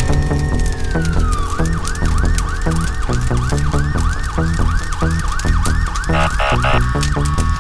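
Electronic emergency-vehicle siren: a slow wail peaks and falls, then switches to a fast yelp of about two sweeps a second, with a brief pulsed high tone near the end.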